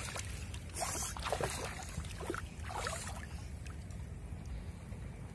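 Hands splashing and sloshing through shallow floodwater while feeling for fish in the mud and grass, with a couple of sharper splashes about a second in and near three seconds, over a steady low rumble.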